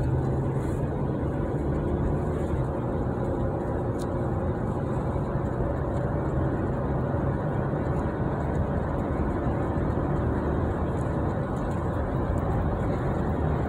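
Steady road and engine noise inside a moving car's cabin: an even low rumble.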